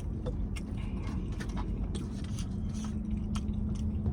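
A person chewing a mouthful of stewed oxtail, with scattered small wet clicks from the mouth, over a steady low hum.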